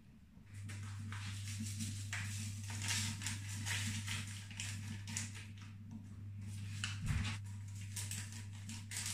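Crinkling and rustling of seasoning-cube wrappers as the cubes are unwrapped and crumbled by hand over a pot of chicken, in irregular crackles. A steady low hum starts about half a second in.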